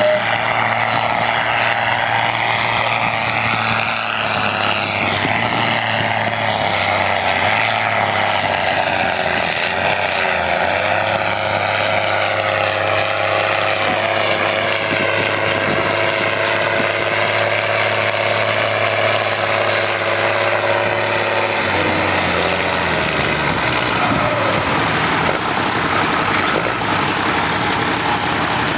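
A farm tractor's diesel engine runs hard under load, pulling a weight-transfer sled down a tractor-pull track, and its note sags slowly as the pull goes on. About three-quarters of the way through, the engine note drops away as the tractor eases off.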